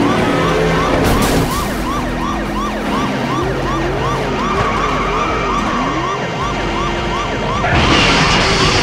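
Police car siren on a fast yelp, rising and falling about two to three times a second, with a slower wailing siren tone rising and falling in the middle. Near the end a louder rush of noise comes in as the police car crashes.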